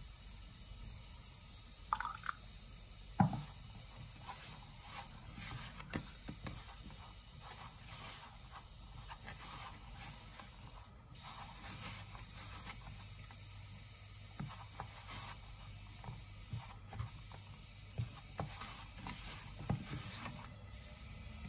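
Hands mixing and squeezing crumbly whole-wheat flour and water into roti dough in a plastic bowl: soft rustling and scraping with scattered light taps against the bowl, and two sharper knocks a few seconds in.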